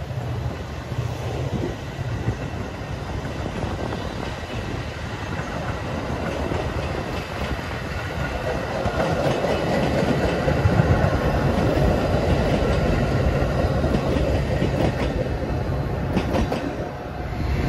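Metra stainless-steel bilevel passenger cars rolling past on the rails: a steady rumble of wheels on track that grows louder about halfway through, with a few wheel clicks near the end.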